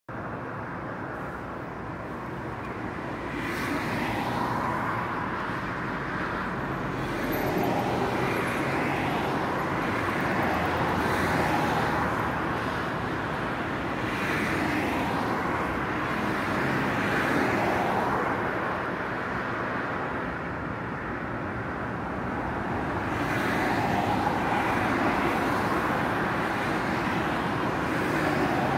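Road traffic: cars passing one after another on a multi-lane road, each one's tyre and engine noise swelling up and fading away over a steady background hum.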